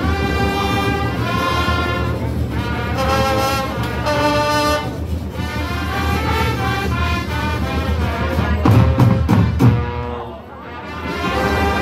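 School band brass (trumpets and trombones) playing a melody in held notes. About nine seconds in comes a quick run of loud hits, followed by a short break before the brass comes back in.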